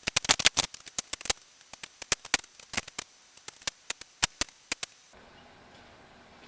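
Tire irons working a tire bead over a steel tractor wheel rim: an irregular run of sharp clicks and knocks, quick and crowded at first, then sparser, stopping about five seconds in.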